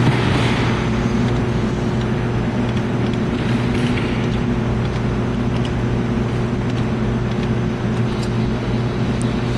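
Steady low electrical hum of a claw machine being played, with a few faint clicks.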